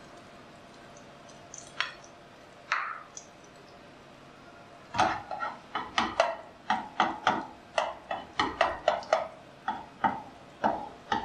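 A spatula patting and pressing a battered bread slice in a nonstick frying pan: a couple of single clicks, then from about halfway a quick run of taps, about two to three a second.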